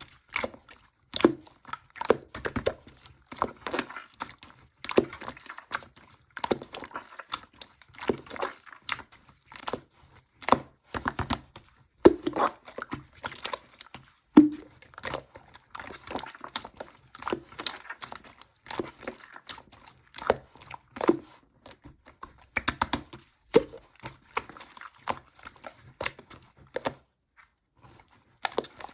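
Slime being squished and kneaded by hand, making a dense run of irregular clicks and pops, with a short pause near the end.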